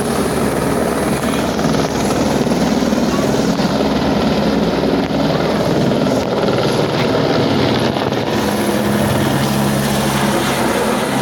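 Helicopter running close by: a loud, steady rotor and engine noise with a fast, even beat.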